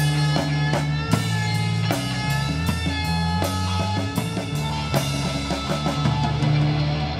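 Live rock band playing an instrumental passage: guitar holding sustained notes over a drum kit keeping a steady beat, about two hits a second.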